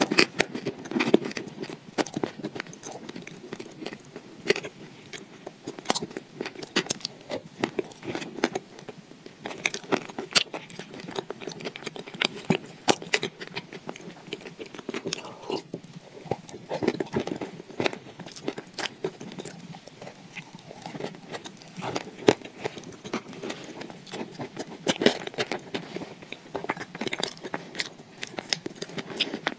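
Close-miked mouth sounds of someone eating a thick, creamy paste: wet, sticky smacking of the lips and tongue with frequent irregular clicks.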